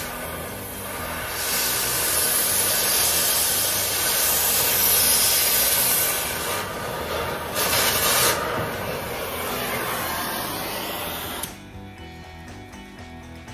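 Torch flame hissing steadily as it works on a seized shock-absorber nut, louder for a stretch midway, then shut off sharply near the end. Quieter background music carries on after the torch stops.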